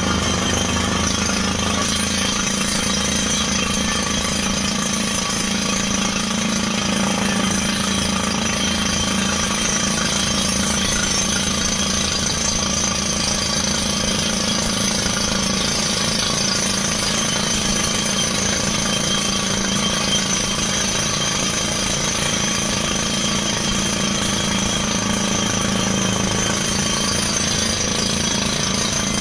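Truck-mounted water well drilling rig running under test, with a rapid, continuous percussive hammering over the steady drone of its engine and air compressor.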